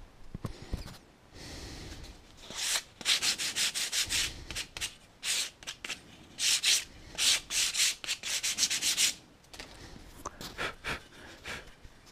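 Wooden board being abraded by hand, as in shaping a small brace piece: a run of quick, even back-and-forth rasping strokes, about two to three a second, from about three seconds in until about nine seconds, with softer rubs and handling before and after.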